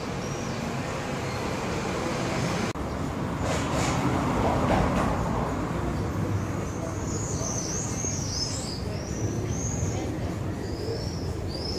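A steady low background rumble that grows louder for a couple of seconds about four seconds in, then small birds chirping in short, high calls through the second half.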